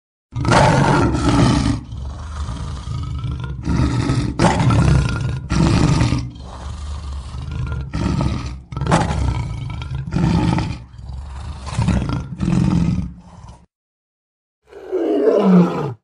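Lion roaring: a long run of short roaring grunts, roughly one a second, that cuts off about thirteen seconds in, then a single call falling in pitch near the end.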